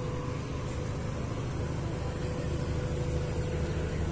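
Outdoor background noise: a steady low rumble with no distinct events, and a faint steady tone that fades out about halfway through.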